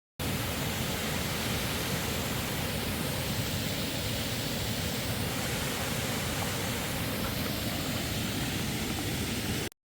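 Small waterfall rushing: a steady, even roar of falling water with no breaks, starting and stopping abruptly.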